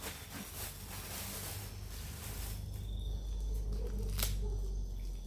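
Plastic food packaging being handled, rustling and crinkling, with one sharp click about four seconds in.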